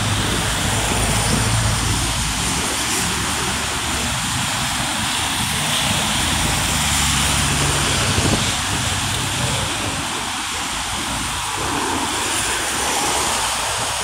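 Traffic on a rain-soaked city road: a steady hiss of tyres on wet asphalt over a low hum of car and bus engines.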